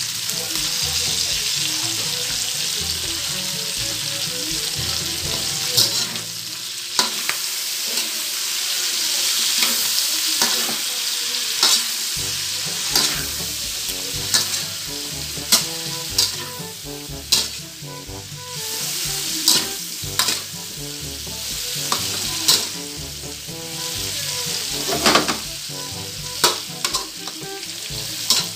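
String beans and pork sizzling in a metal wok while a slotted metal spatula stirs them, knocking and scraping against the pan every second or two.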